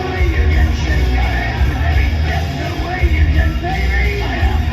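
Loud rock music with a singer's voice over a heavy, pulsing bass.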